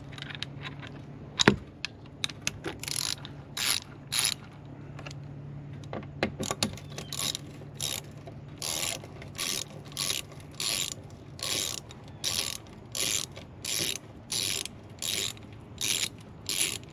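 Hand ratchet clicking in repeated back-and-forth strokes, a little over one stroke a second, as it loosens a small bolt. There is a single sharp click about a second and a half in.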